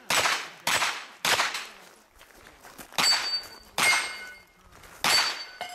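Pistol caliber carbine firing six shots: three in quick succession about half a second apart, then three more spaced about a second apart. The later shots are each followed by a ringing clang of a struck steel target.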